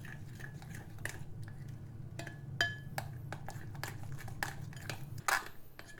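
A spoon clinking and scraping against a mixing bowl while stirring a thick curd-and-spice marinade: irregular light clicks, some with a brief metallic ring, over a low steady hum that stops about five seconds in.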